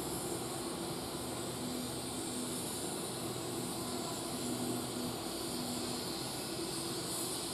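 Steady hiss with a low hum from a stationary steam-hauled train standing at the platform.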